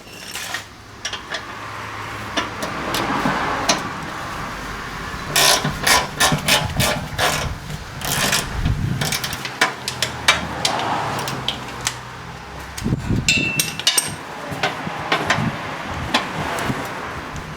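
Oil pan being worked loose and lowered out from under a Ford Windsor V8: irregular metallic clanks, knocks and scraping as the pan is wiggled past the engine and chassis, with a brief squeak partway through.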